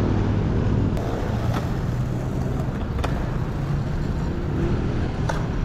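City street traffic: cars going by with a steady rumble of engines and tyres, and a few light clicks.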